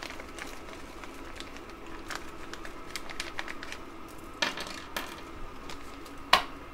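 Small plastic zip-top bag crinkling as it is handled and opened, with small metal ball bearings clicking against each other as they are tipped out; two sharper clicks stand out near the end. A faint steady hum lies underneath.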